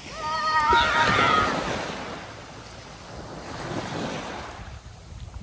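Small surf breaking and washing up a sandy beach, with a child's high-pitched shout lasting about a second at the start.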